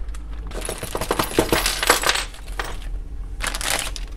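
Small metal parts clinking and rattling inside a plastic bag as it is handled: a quick run of clicks, then a short crinkling rustle near the end.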